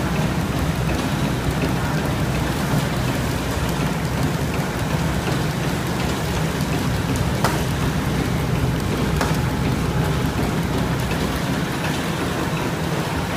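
Sugar turntable packing machine running: a steady mechanical hum and dense clatter, with a couple of sharper clicks about halfway through.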